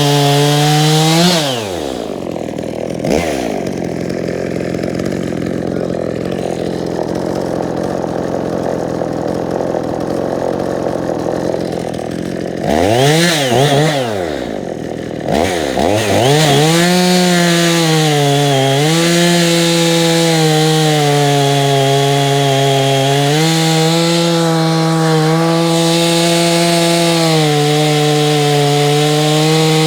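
EFCO gas chainsaw at full throttle, dropping to idle about a second in. It idles for about ten seconds with two quick blips of the throttle, then runs back up to full throttle for the rest. The pitch dips briefly a few times as it cuts through hardwood blocks.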